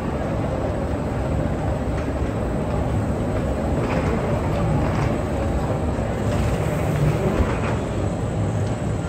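Steady low rumble of a moving walkway carrying passengers along an underground corridor, with a few faint clicks in the middle.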